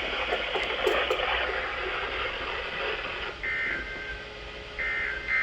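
NOAA Weather Radio receiver hissing with static, then from about three and a half seconds in, several short warbling two-tone data bursts: the SAME digital header that opens the weekly test.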